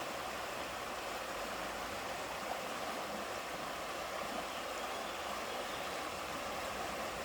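Stream of water flowing in a steady, even rush.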